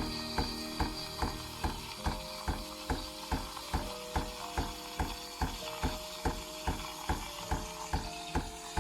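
Background music with a steady ticking beat, about two and a half beats a second, under a slow melody of held notes that change pitch every second or so.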